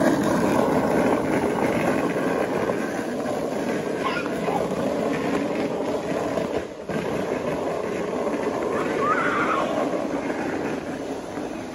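Steel ball-bearing wheels of a wooden carrinho de rolimã cart rolling fast on rough asphalt, a continuous rattling rumble that drops out briefly about seven seconds in and fades near the end.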